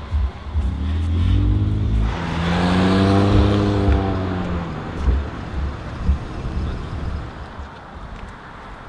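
A car driving past: engine and tyre noise swell from about a second in, peak around three to four seconds, and fade by five seconds. Wind buffets the microphone with a low rumble throughout.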